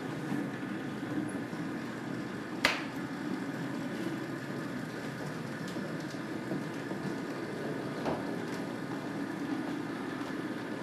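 Märklin HO model trains running on the layout, giving a steady running noise of motors and wheels on the track. A sharp click sounds about two and a half seconds in, and a softer one about eight seconds in.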